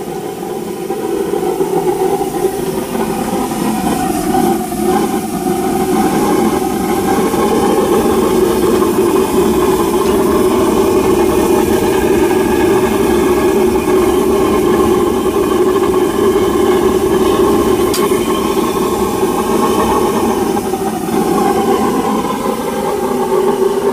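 Waste oil burner (a converted home heating oil burner burning used motor oil) running steadily at full burn, a dense even rushing hum; it grows louder about six seconds in.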